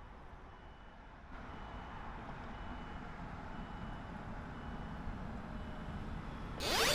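Low vehicle rumble, in the manner of a train approaching a level crossing, slowly growing louder, with a faint high beep repeating about every half second. Near the end a much louder sound with several rising pitches cuts in.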